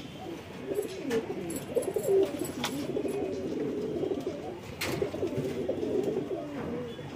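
Several domestic pigeons cooing together in a continuous, overlapping murmur. A few short sharp taps cut through it, the clearest about five seconds in.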